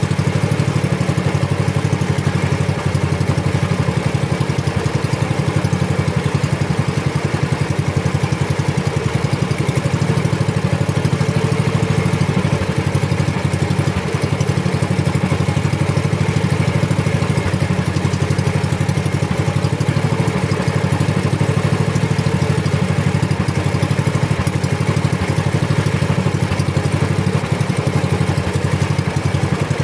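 Small outrigger fishing boat's engine running steadily, a fast, even low drone that does not change in speed.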